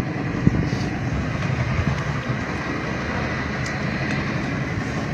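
Steady, even rushing noise aboard a small open boat at sea, with no separate knocks or calls.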